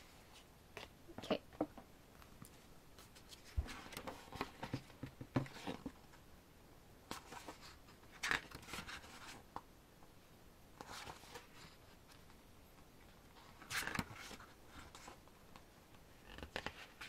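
Pages of an album photobook being opened, turned and handled: irregular paper rustles and scrapes, with a few sharper knocks as the book is moved.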